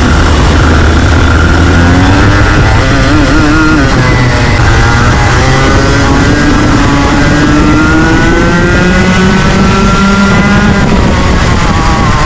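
Rotax Junior Max two-stroke kart engines racing, loud, with the engine note rising and falling again and again as the revs climb and drop.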